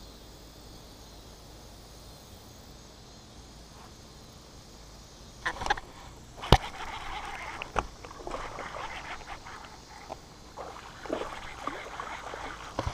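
Faint steady outdoor hiss, then from about five and a half seconds in, irregular clicks, knocks and rustling as an angler with a chest-mounted camera fights a small bass on a baitcasting rod and reel and reaches down to land it. A single sharp knock about six and a half seconds in is the loudest sound.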